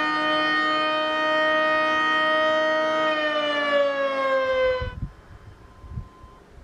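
Sentry Siren 16V1T-B electromechanical tornado siren sounding a steady tone, then about three seconds in its pitch starts falling as it winds down, cutting off suddenly just under two seconds later. A few low thumps follow.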